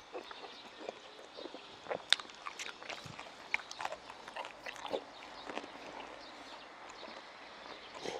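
Close-miked chewing of a mouthful of stir-fried meat and pepper strips: irregular wet smacks and clicks of lips and tongue.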